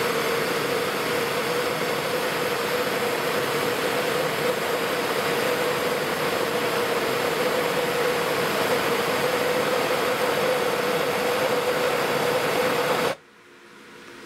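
Bernzomatic TS8000 propane torch burning steadily with a rushing hiss and a steady tone under it, heating a copper ring shank until its ends fuse. The flame cuts off suddenly about a second before the end.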